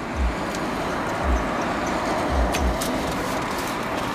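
A person chewing hot wings, with scattered wet lip-smacking clicks, over a steady hum inside a car. A few soft low thumps come at about one-second intervals.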